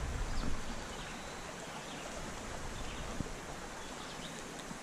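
Steady rush of a flowing creek.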